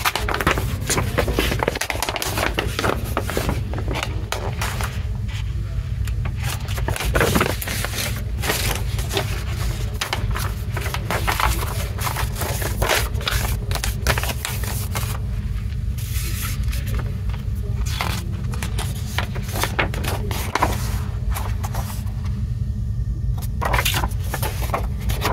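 Paper rustling and crinkling as a large folded paper poster and printed paper inserts are unfolded and handled, with many short crackles throughout over a steady low hum.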